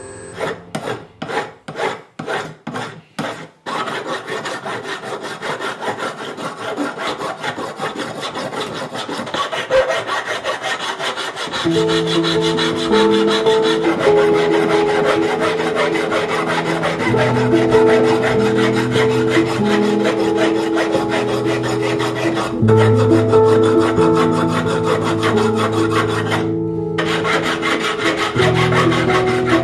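Hand file rasping across a braided copper and silver wire cuff: a few separate strokes about two a second, then fast continuous filing. Background music with sustained low chords comes in about a third of the way through and runs under the filing.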